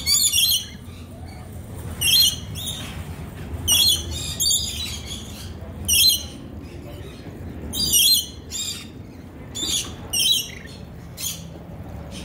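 Rainbow lorikeets screeching: short, shrill calls repeated every second or so as they crowd a nectar cup.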